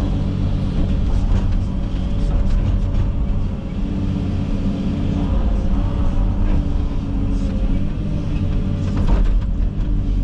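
Komatsu 360 excavator's diesel engine running steadily under working load, a loud even drone heard from inside the cab, with a few scattered knocks and cracks near the middle and end.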